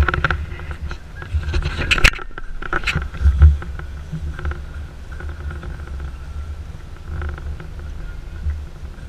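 A boat's outboard motor running steadily under uneven low wind rumble on the microphone, with a few sharp knocks in the first three seconds.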